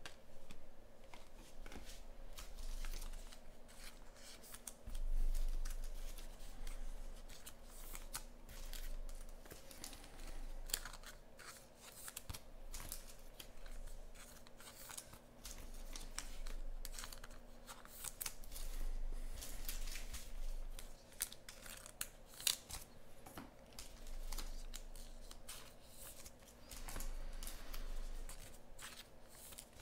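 Trading cards being handled at a table: cards sliding and flicking against each other, with many scattered sharp clicks and rustles.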